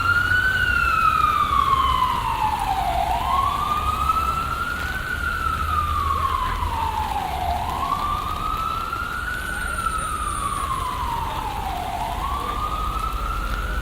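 Emergency vehicle siren on a slow wail, rising and falling about every four and a half seconds and growing slightly fainter, over a low rumble of city traffic.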